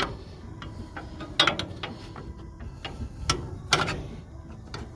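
Truck fender-brace blinker light knocking and clicking loosely in its bracket as it is handled, a few separate sharp knocks. The light sits loose in the mount with no room for a rubber grommet, so it rattles.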